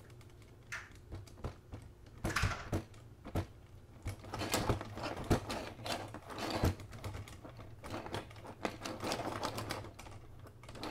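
Irregular clicking and clattering: a run of small knocks and rattles, some in quick bunches, starting about two seconds in.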